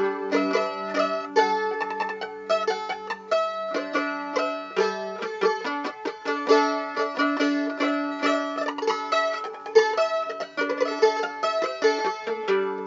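Music played on a plucked string instrument: a melody of quickly picked notes, many short notes a second, over lower held notes.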